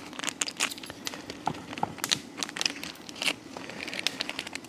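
Plastic seasoning packet crinkling and rustling as it is handled, a run of small irregular crackles.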